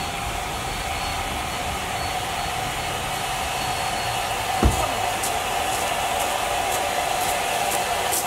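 Train running along the track: a steady rushing rumble with a faint hum, one sharp knock about halfway, and light irregular clicking in the second half.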